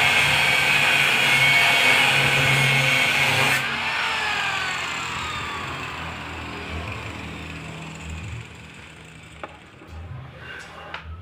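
An electric power tool runs loudly, then is switched off about three and a half seconds in and winds down, its pitch falling as it slows and fades.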